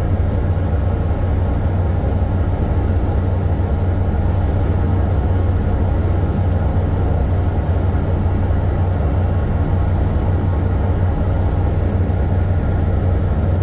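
Steady low drone of a ship's engine running.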